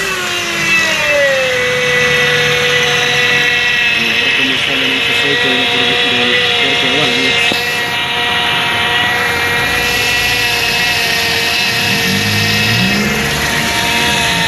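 A Mitsubishi Lancer's engine just started and running at idle with its CVT oil pan off. A whine falls in pitch over the first second or so, then holds steady. The engine is run briefly to push fluid trapped in the torque converter out through the valve body.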